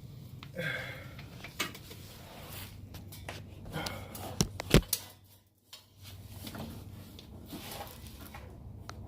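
Exhaust pipe and hanger knocking and clattering as the hanger rod is forced into its rubber mount under the car, with two sharp metallic knocks about four and a half to five seconds in.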